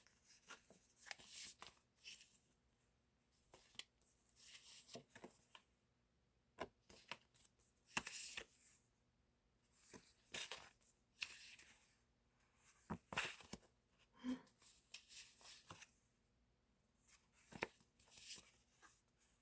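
Paper and plastic sticker packs being handled and sorted: faint, intermittent rustling and crinkling with scattered light clicks and taps.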